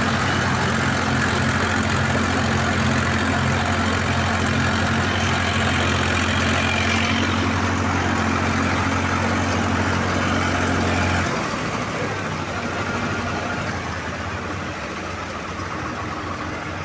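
Tractor diesel engine running at a steady speed, heard from the tractor itself, with a low, even drone. About eleven seconds in it cuts off suddenly, leaving a quieter engine rumble.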